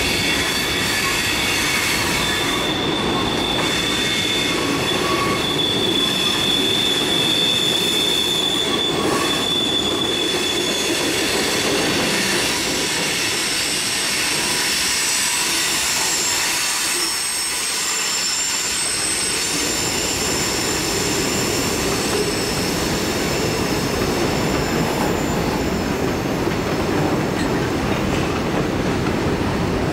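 Freight cars of a long mixed freight train rolling past, a continuous rumble of steel wheels on rail with steady high-pitched wheel squeals over it; the squeal rises higher in pitch about halfway through.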